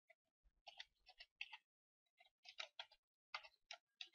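Computer keyboard typing: quick runs of light key clicks with short pauses between them.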